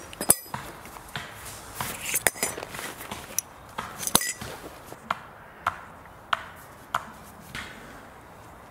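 Tent pole sections clattering and clinking together as a Lavvu pole is put together, with a few short metallic rings. From about five seconds in, a run of evenly spaced sharp knocks, roughly one every 0.6 s.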